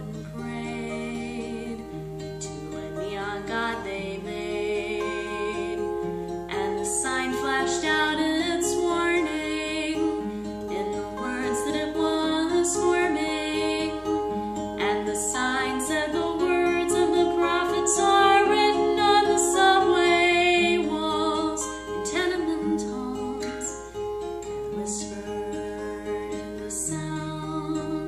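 A song: a singing voice over plucked acoustic guitar.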